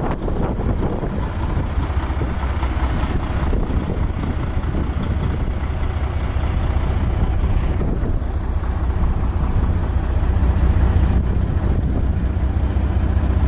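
Steady low rumble of vehicle traffic and wind buffeting the microphone in a blizzard on an interstate, growing slightly louder in the second half.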